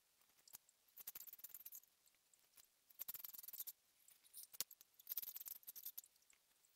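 Strands of 2.5 mm fine chair cane being pulled through the woven cane seat: faint, crisp rasping scrapes in several short bursts under a second each, with small clicks between.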